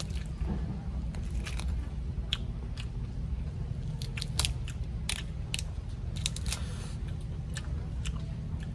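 Shell of a boiled giant tiger prawn cracking and snapping as it is peeled by hand, in scattered sharp clicks, over a steady low rumble.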